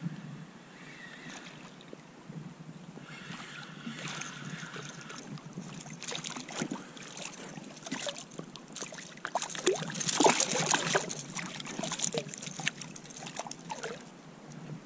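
Water splashing as a small sea bass thrashes at the surface beside a kayak while it is landed by hand. A run of short splashes, strongest about ten seconds in.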